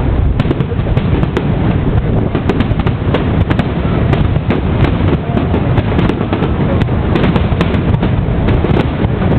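Fireworks going off in a dense, continuous barrage: deep booms running together, with many quick sharp crackles over them.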